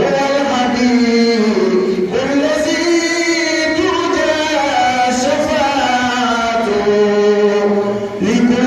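A man's voice chanting a slow, ornamented song into a microphone, holding long notes that slide up and down between pitches.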